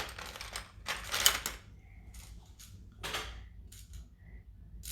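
Plastic LEGO Technic parts clicking and rattling in several short bursts, the loudest about a second in.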